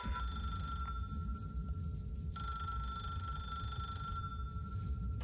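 A steady high electronic tone, like a held beep or ring, over a low rumble. The tone drops out for about two seconds near the start and then comes back.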